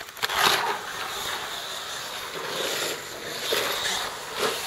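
Slot car running along a plastic track, its small electric motor and wheels making a steady whirr, after a short knock near the start as the car is set down in the slot.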